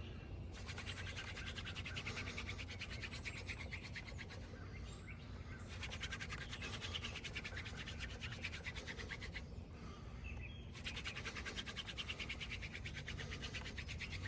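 Dogfennel hand-drill spindle spinning in the socket of a water oak fireboard, giving a fast, fine rubbing and scratching of wood on wood. It comes in runs of several seconds, broken by short pauses as the hands go back to the top of the spindle between passes.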